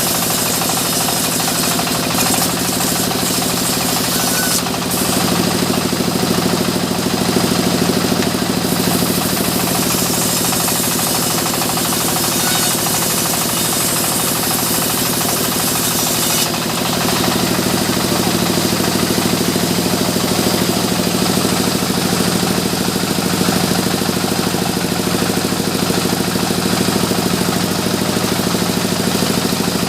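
Engine-driven sawmill machinery running continuously with a knocking engine note, the sound growing heavier about five seconds in, easing briefly around sixteen seconds and then growing heavier again.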